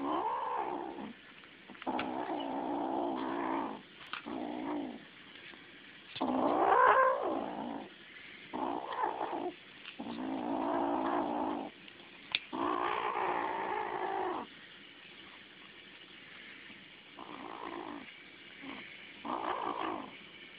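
Five-week-old kitten making about nine drawn-out, wavering growling yowls while eating chicken, the loudest one rising and falling near the middle. This is the excited food-guarding growl of a kitten over meat she loves.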